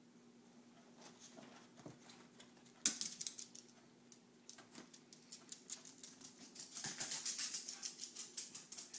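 A ferret scrambling about: one sharp click about three seconds in, then a quick run of light ticking clicks near the end, about seven a second.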